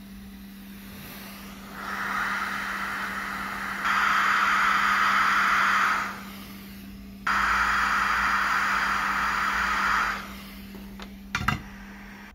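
Hot air rework station blowing onto the circuit board while a small surface-mount resistor is replaced: a steady hiss of air that comes on about two seconds in, grows louder, cuts out around six seconds and comes back for about three seconds, over a steady low hum. A few light clicks near the end.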